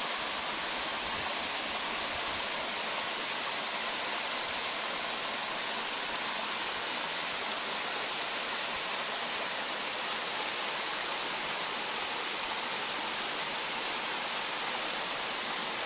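A small mountain trout stream running over rocks and a little cascade: a steady, even rush of water, mostly a high hiss with little low rumble.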